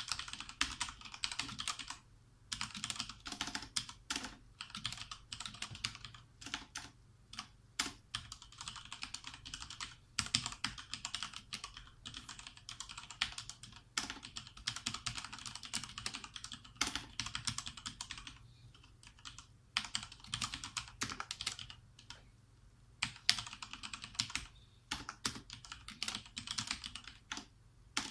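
Typing on a Thermaltake TT Premium Level 20 RGB Titanium mechanical keyboard with Cherry MX Speed Silver linear switches. Fast, continuous clacking of keystrokes comes in runs broken by brief pauses, with an occasional louder keystroke.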